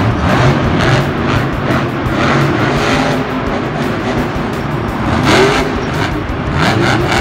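Monster truck engines running and revving, with one rising rev about five seconds in.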